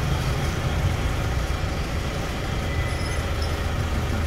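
Steady low rumble of vehicle and road noise with an even hiss above it.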